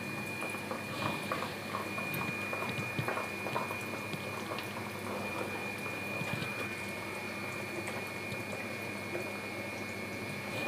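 Spiced curry gravy boiling in a non-stick kadai, a steady bubbling with many small pops and crackles, with a faint steady high whine underneath.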